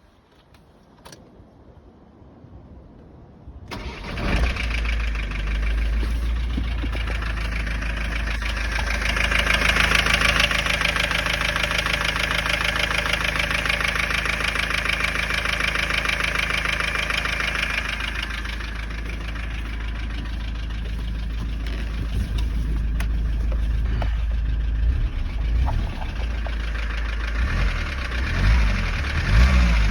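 Ford Transit 2.4 diesel engine started about four seconds in, then idling, louder for a stretch before settling and with a few uneven surges near the end. It runs with a knock the owner is trying to trace, one that persists with new injectors and a new rocker plate fitted.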